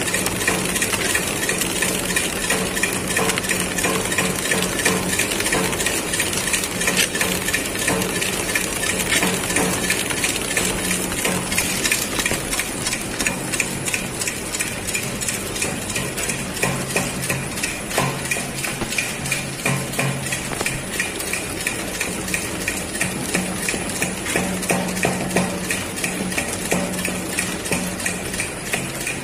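Automatic horizontal flow-wrap snack packing machine running steadily: a rapid, regular clicking from its moving parts over a constant hum and a faint high whine.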